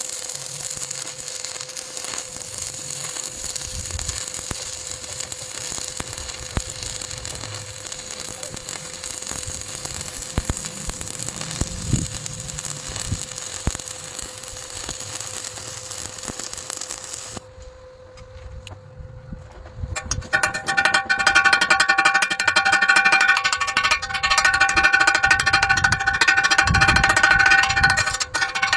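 Electric welding arc crackling and hissing steadily for about seventeen seconds. After a short lull comes a louder passage with a steady whine and dense rasping, typical of grinding the weld.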